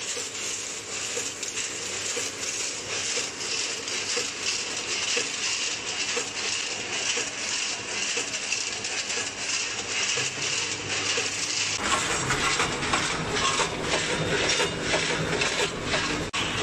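Multihead weigher running: snack chips pour through its stainless-steel hoppers in a dense, irregular clatter and rattle of chips and metal gates. About twelve seconds in, a steady lower machine hum joins the clatter.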